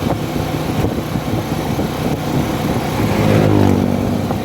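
Steady engine and road rumble of a car on the move, heard from inside. About three seconds in, an engine tone rises in pitch and swells louder for about a second.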